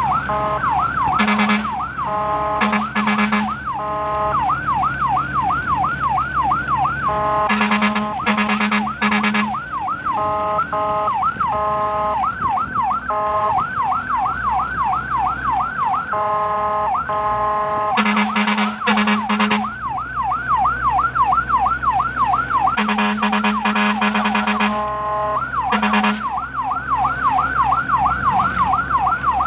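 Fire and rescue vehicle's electronic siren on a fast yelp, switching at times to a steady held tone, with short horn blasts in groups of two or three about a second in, around 8 s, 18 s and 24 s. A vehicle engine hums low underneath.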